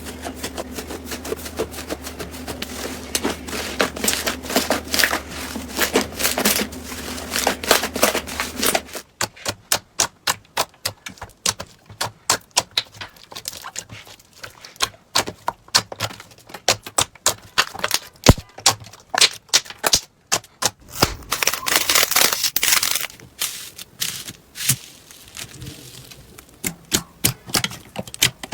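Slime being squeezed, poked and stretched by hand, making rapid sticky clicks and small air-bubble pops, with a denser crackling stretch near the end. A faint steady hum sits under the first part.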